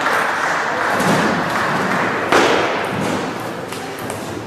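Table tennis rally: the ball knocking off the rackets and bouncing on the table in a run of sharp clicks, the loudest about two and a half seconds in, over the steady noise of a large sports hall.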